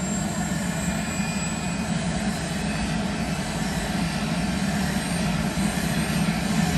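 Airbus AS350 Écureuil helicopter running on the ground at idle, rotor turning: a steady turbine and rotor drone that grows slightly louder near the end.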